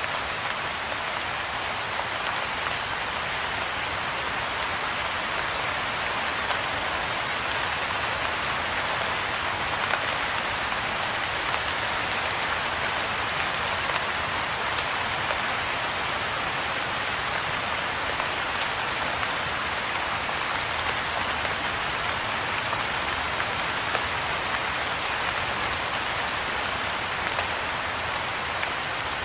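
Soft rain falling steadily on a pond's surface and the foliage around it: an even hiss of countless drops, with no change or break.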